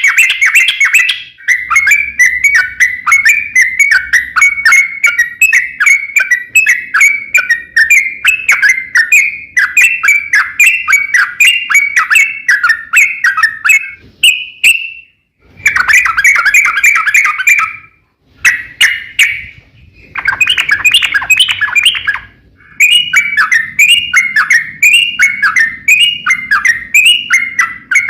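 Yellow-vented bulbul (trucukan) singing long runs of rapid, chattering notes, phrase after phrase, with a few short breaks.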